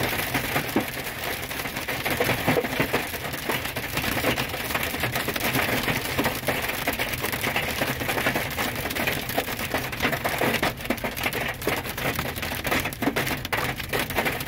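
Large hailstones beating on a truck's windshield and roof, heard from inside the cab as a dense, unbroken clatter of hard hits. The hail is heavy enough that the windshield seems about to break.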